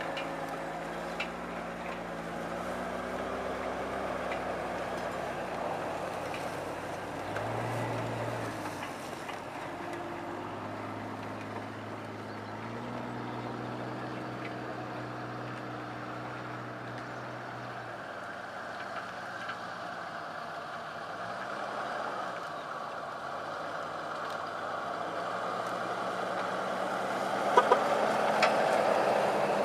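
Jeep 4x4 engines running at low revs as the vehicles crawl along a rough forest trail, the engine note stepping up and down with the throttle. Near the end a Jeep Cherokee comes closer and gets louder, with a few sharp knocks.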